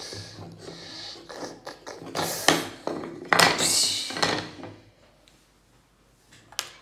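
Handling noise close to the phone's microphone: light taps and knocks on a wooden tabletop, then two loud rustling, scraping bursts as fabric rubs over the phone, before it goes nearly quiet.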